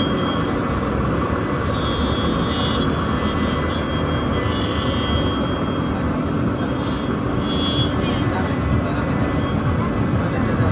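CNC router spindle running steadily as its bit carves a relief into a wooden panel, with a constant machine whine and hum. Voices chatter in the background.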